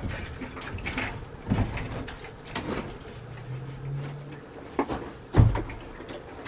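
Plastic kitty litter containers full of water being set down and shifted on a wooden shelf: a series of knocks and thumps, the loudest about five seconds in. A brief low hum sounds in the middle.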